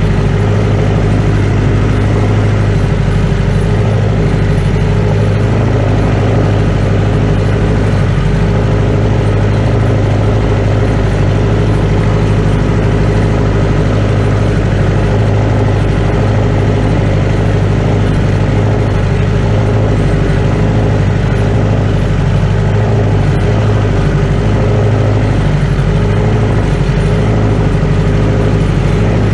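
1956 Case 300 tractor engine running loud and steady at one constant speed, with no revving or changes.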